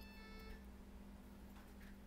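Near silence over a steady low electrical hum, with a faint, brief metallic ring in the first half-second, like a tiny screw just taken out being set down on the work surface.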